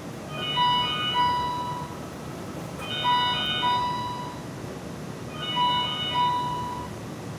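Electronic warning chime from a station platform's rope-type safety barrier as it closes, one short tone and a longer one, played three times.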